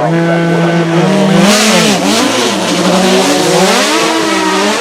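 Naturally aspirated GT1 racing car engine revving hard. Its pitch holds, climbs to a peak about a second and a half in and drops sharply, then rises and falls twice more as the throttle is worked, with a loud rush of hiss around the first peak.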